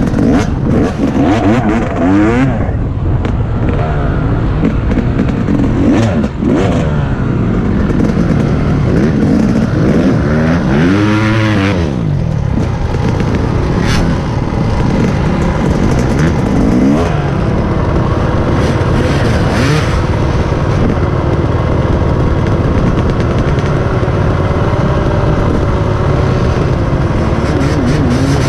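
Dirt bike engines idling and being revved, pitch rising and falling in several revs; the biggest rev comes around eleven seconds in.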